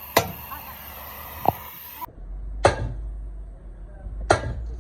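Four sharp hammer blows on metal, irregularly spaced about a second and a half apart, each ringing briefly.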